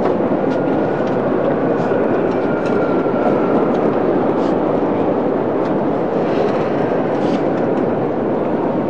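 Steady murmur of a large crowd, many people talking at once so that no single voice stands out.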